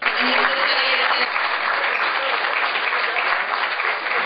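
Audience applauding, loud and steady; the clapping starts abruptly.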